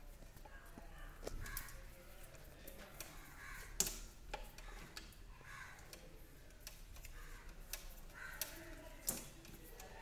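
Scattered sharp clicks and taps from wires and terminals being handled at a wall-mounted distribution board of MCBs and an isolator, the loudest a little under four seconds in. Faint calls sound in the background.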